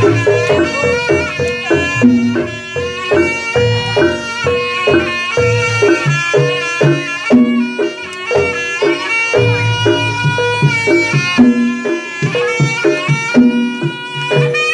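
Live Javanese jaranan horse-dance music: a reedy, bagpipe-like wind melody held over a repeating pattern of gamelan gong and metallophone notes and hand-drum strokes.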